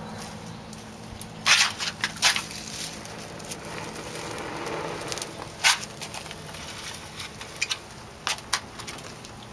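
Dry pine-needle tinder bundle catching fire from a friction-fire coal: scattered sharp crackles and snaps, the loudest a few seconds apart, with a soft rushing swell around the middle.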